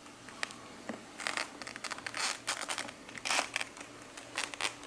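Hard plastic stormtrooper helmet scraping and rustling against the head and hair as it is pulled on sideways and twisted forward, in several short scuffing bursts over a faint steady hum.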